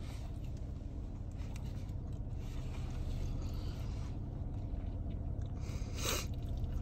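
Steady low rumble of a car's cabin with the engine running, and a brief rustle about six seconds in.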